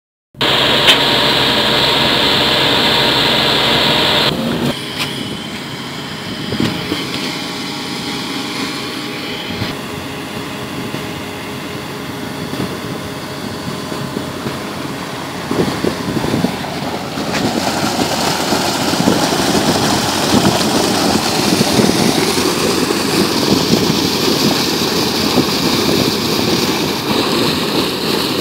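Atlas Copco portable air compressor running loudly and steadily for about four seconds. Then a steady rush of compressed air and muddy water blowing out of a water well's discharge pipe, growing louder and fuller about two-thirds of the way through, as the well is blown clean.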